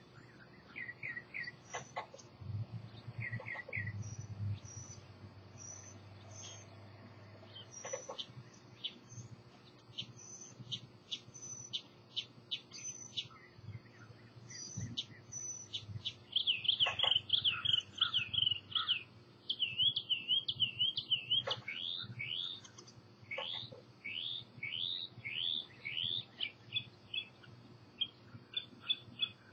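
Wild songbirds singing and chirping, with short high chirps throughout. About halfway through, a louder warbling song runs for several seconds, followed by a series of quick down-slurred notes, about two a second.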